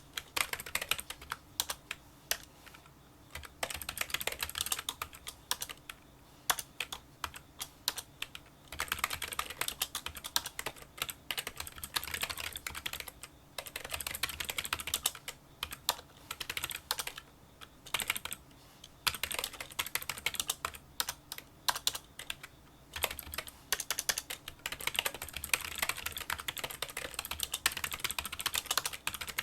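Fast touch-typing on a Kinesis Freestyle Solo split keyboard with membrane key switches: rapid runs of small, light clicks, broken by brief pauses every few seconds.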